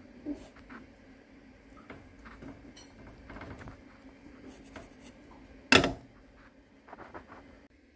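Espresso tamper pressing and turning on the coffee grounds in a metal portafilter basket, with faint scraping and small clicks, then a single loud clack about six seconds in as the tamper is lifted out. A low steady hum runs underneath.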